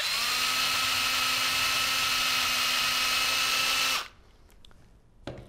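Cordless drill with a step bit spinning up and running steadily at constant pitch for about four seconds as it bores out a hole in a plastic project box, then stopping abruptly. A few faint clicks follow.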